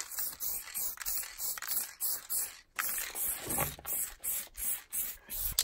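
Aerosol can of U-Pol acid etch primer hissing as it sprays onto the Land Rover's aluminium body panel, in a run of short bursts held close to the bodywork.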